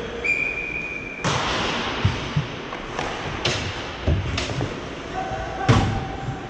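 Hockey play: a brief high whistle tone near the start, then several sharp thuds and slams of puck, sticks and players against the rink boards, the loudest near the end.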